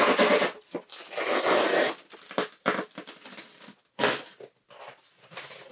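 Polystyrene foam packing blocks rubbing and scraping against each other and the box as they are pulled out, in several noisy bursts, the sharpest one about four seconds in.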